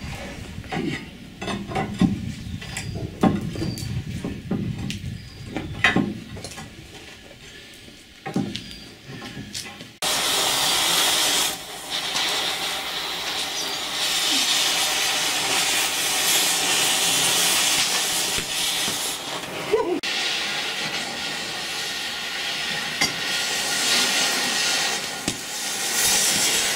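For the first ten seconds, a metal bar knocks and scrapes inside a steam boiler's firebox. Then an oxy-fuel cutting torch hisses steadily as it cuts through metal on the boiler's riveted steel front.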